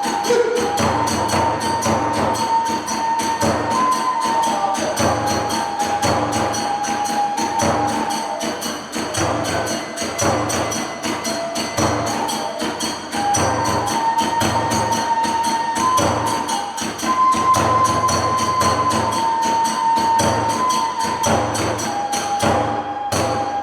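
Kagura festival music: a bamboo kagura flute plays a held, wavering melody over a big drum beating a steady rhythm, with small hand cymbals clashing in time.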